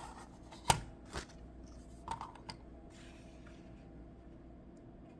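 Plastic Westcott paper trimmer being put down and handled on a table: a sharp knock about a second in, a softer one just after, then a few light clicks.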